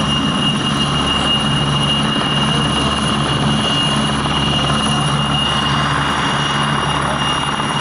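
Two military helicopters running near the ground, rotors turning and turbine engines going, a loud steady sound with a constant high whine.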